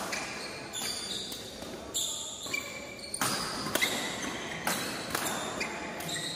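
Badminton rackets striking the shuttlecock in a rally: a string of sharp hits about one a second, echoing in the hall. Short high sneaker squeaks on the court mat come between the hits.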